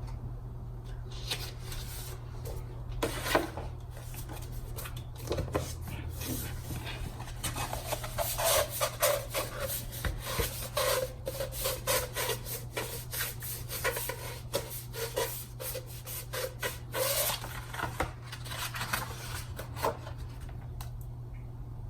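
Stiff cardstock paper petals being handled and rubbed: a long run of short scrapes and crinkles, busiest in the middle, over a steady low hum.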